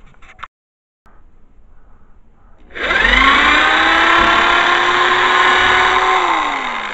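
Hyper Tough corded electric drill boring a 1/8-inch pilot hole through a plywood disc. About three seconds in it spins up with a rising whine, runs steady under load, then winds down with falling pitch near the end.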